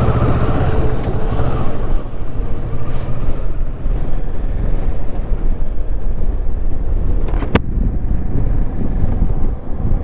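Kawasaki Versys 650 parallel-twin engine pulling away and accelerating, then running steadily at road speed with wind noise on the microphone. A single sharp click about seven and a half seconds in.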